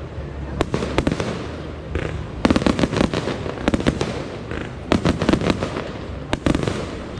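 Fireworks and firecrackers going off: rapid sharp cracks in several dense clusters, about a second in, from about two and a half to four seconds, again around five seconds and near the end.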